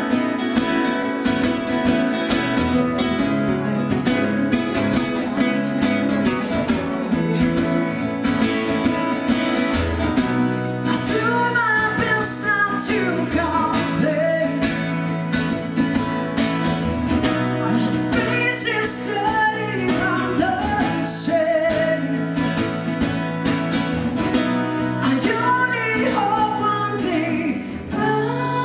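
Live acoustic song: acoustic guitars strumming steadily, with a singing voice coming in about eleven seconds in and carrying on in separate phrases.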